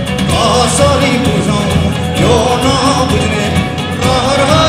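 Live band playing a song, a lead melody line rising and falling over steady accompaniment.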